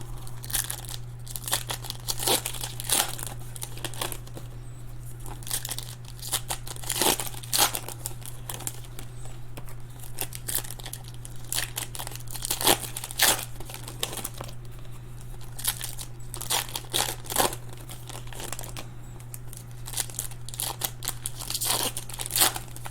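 Crinkling and tearing of trading-card pack wrappers being opened, with the cards shuffled and handled, in irregular bursts over a steady low electrical hum.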